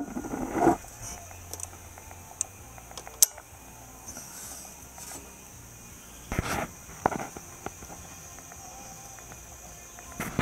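A few sharp clicks and knocks as a grey metal box is handled, over a steady high-pitched insect drone.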